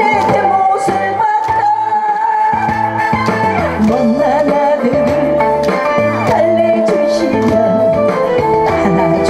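A woman singing a Korean trot song into a microphone over a backing track with guitar, holding long notes with vibrato.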